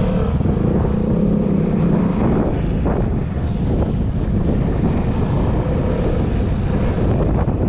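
Vespa S125 scooter's single-cylinder four-stroke engine running as it pulls away and rides off, with a steady note in the first couple of seconds. Wind rushes over the microphone.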